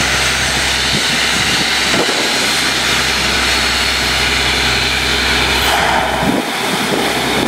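Truck-mounted borewell drilling rig running: a steady, loud engine drone under a wide hissing rush of noise. The low hum dips briefly about six seconds in.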